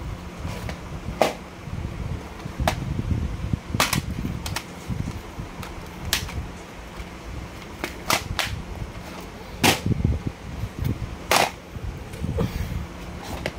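Plastic DVD cases being handled: about a dozen sharp plastic clicks and snaps as cases are opened, shut and set down, with rustling handling noise between them.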